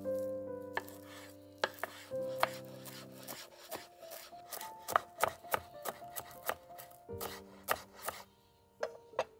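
Kitchen knife chopping fresh parsley on a wooden cutting board: crisp taps of the blade against the board, quickening to about four a second in the middle, with a short pause and two last chops near the end. Quiet background music plays underneath.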